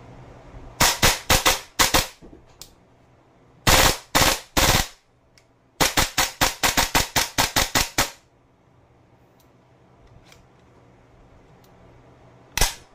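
Gas blowback airsoft rifle, an AFPG (VFC) MCX Spear LT 9-inch, firing: a string of about five sharp shots, then three, then a longer rapid string of about a dozen, and one last shot near the end.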